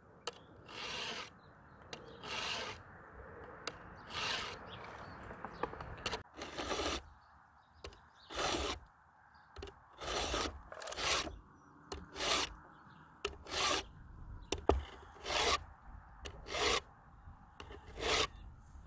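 Stihl 2-in-1 chainsaw sharpener's round file and flat file rasping across the saw chain's teeth, about a dozen short strokes, one every second or two: each stroke sharpens a cutter and lowers its depth gauge in one pass.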